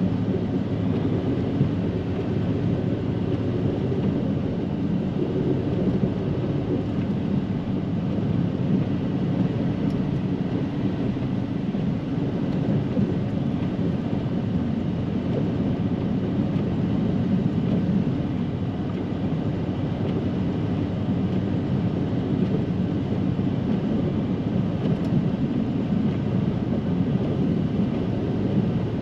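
Snowplow truck running steadily through heavy, wet snow, heard from inside the cab as an even low rumble.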